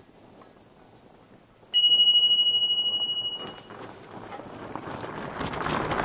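A single bright bell ring about two seconds in, fading out over about two seconds. Toward the end, fat-bike tyres crunch louder over loose gravel as the bike comes close.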